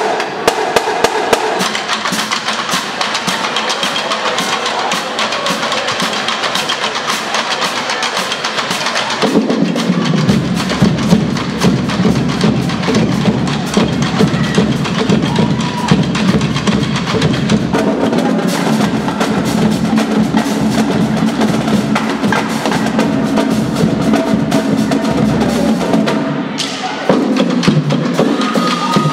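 High school marching drumline playing a fast cadence: rapid snare and stick strokes, with the bass drums coming in heavily about nine seconds in.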